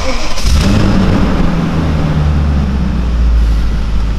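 BMW E39 540i's 4.4-litre V8 engine just started, flaring briefly in the first second and then settling into a steady idle.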